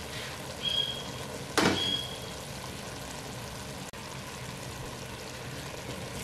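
Mongray (radish pods) and peas sizzling steadily in an uncovered pot on a medium flame, cooked down until nearly dry. Two light ringing clinks come about half a second and a second and a half in.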